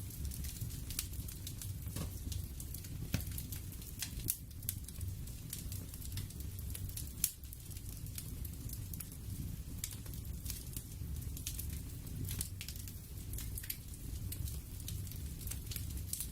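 Crackling fire ambience: irregular sharp pops and snaps over a steady low rumble.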